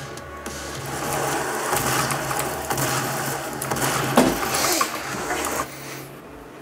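Two-stroke chainsaw running, growing louder to a peak about four seconds in, then stopping suddenly shortly before the end.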